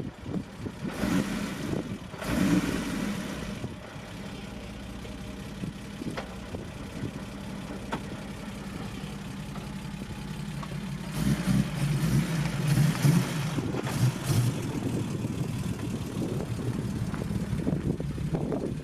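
Car engine running steadily, with a louder, rougher stretch of revving in the middle before it settles back to a steady run.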